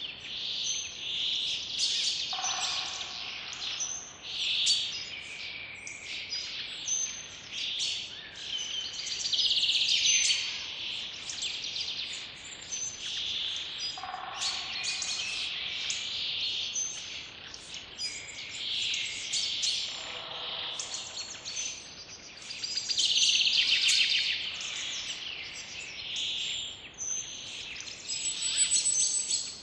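A chorus of several songbirds singing and chirping continuously, with dense overlapping high twittering and a few lower calls now and then.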